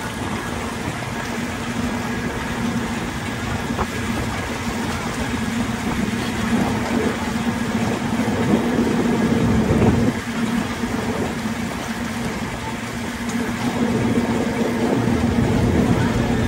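The engine of a Harbour Hopper amphibious tour vehicle running steadily as it is driven on the water, heard from aboard. The drone swells about halfway through, drops suddenly, then builds again near the end.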